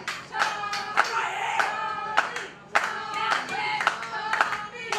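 Crowd voices chanting over irregular sharp claps and slaps.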